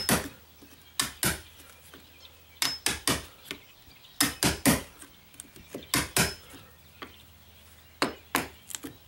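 Hammer tapping a chisel into the wooden door jamb to cut out the strike plate pocket: sharp irregular taps, mostly in twos and threes, with short pauses between.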